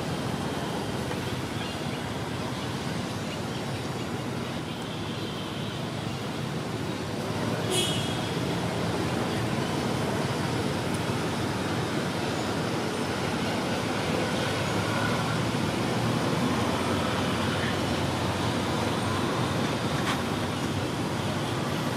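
Steady outdoor background noise, an even hiss and rumble with no clear single source, with one short sharp click about eight seconds in.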